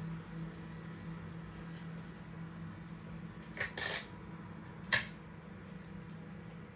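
Light clattering taps of rolled paper tubes being handled: a short cluster of taps about three and a half seconds in and one sharp tap about five seconds in, over a steady low hum.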